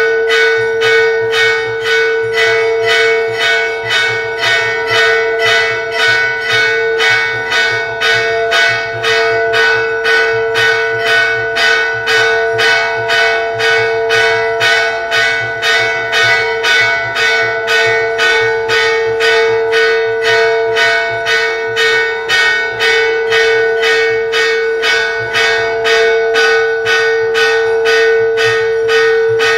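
Temple bell struck rapidly and evenly, about two strikes a second, its ringing tone held continuously, as rung during aarti worship.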